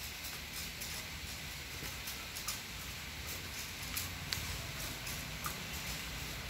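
Outdoor background noise: a low, uneven rumble, with a few faint sharp clicks scattered through it.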